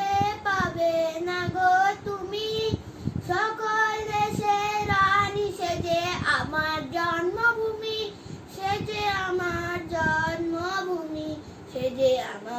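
A boy singing a Bengali song solo and unaccompanied, in long held notes.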